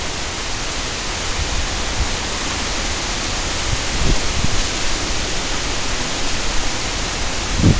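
Strong wind in the forest, a steady rushing hiss with a few low rumbles of wind buffeting the trail camera's microphone about four seconds in.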